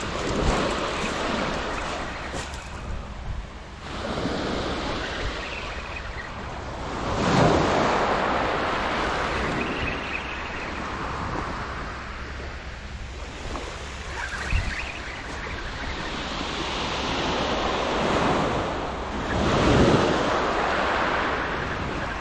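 Small sea waves breaking and washing up a shingle beach. The rush of surf swells and falls with each wave, loudest twice, about a third of the way in and near the end.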